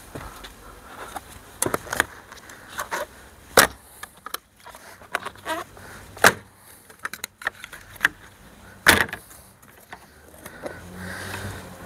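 Irregular sharp clicks and knocks of plastic car trim and its clips being prised and handled, with three louder cracks spread through.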